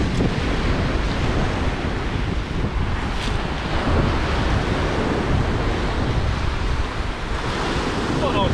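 Waves breaking on a rocky shore, with wind buffeting the microphone in a steady, heavy rumble.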